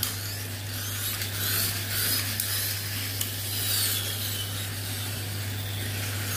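Pull-back spring motors of Mechnimals battle toys whirring and ratcheting: a busy clicking gear noise with high whines that rise and fall.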